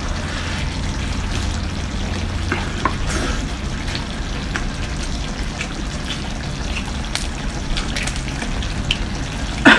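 Close-miked eating of crab in spicy sauce: a steady wet crackle with scattered small cracks and clicks as the shell is pulled apart and the meat is chewed, over a low hum.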